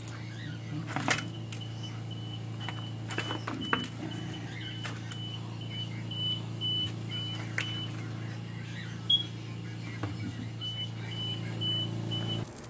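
A steady low electrical hum with a train of short, high electronic beeps at about two a second; the beeping stops a little past halfway and starts again near the end. A few sharp knocks and clatters break in.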